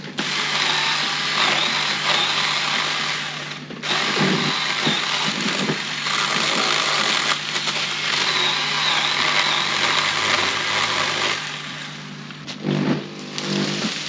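Chainsaw running at full throttle and cutting wood in two long runs, with a brief let-off about four seconds in. It drops back near the end, with a few knocks.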